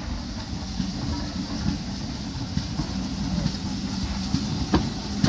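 GWR Small Prairie 2-6-2T steam tank locomotive drawing its coaches slowly into the station: a low rumble of wheels on rail that grows louder as it nears, with scattered knocks and a sharp clank near the end.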